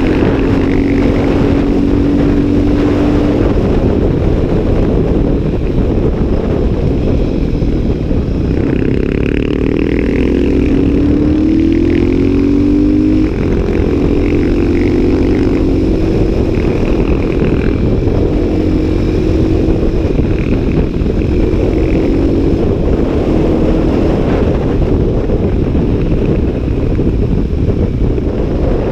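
CCM 604 supermoto's single-cylinder engine running at speed, under heavy wind rush on the microphone. Its note climbs for several seconds about a third of the way in, drops abruptly at a gear change, then holds steadier.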